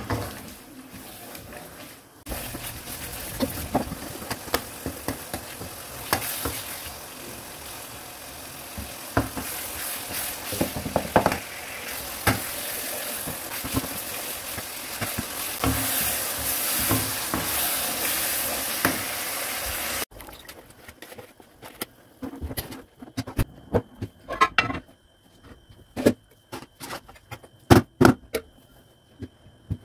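Mutton and green-chilli masala sizzling hard in a non-stick wok while a wooden spatula stirs and scrapes it, with frequent knocks of the spatula against the pan as it is fried down. About 20 seconds in the sizzle cuts off abruptly and only scattered sharp clicks of the spatula on the pan follow.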